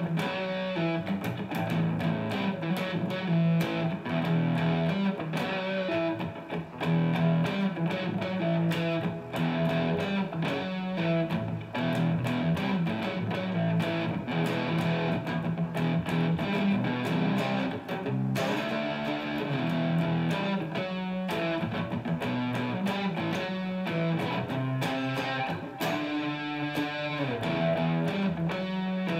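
Electric guitar playing chords, strummed and picked note by note in a continuous stream.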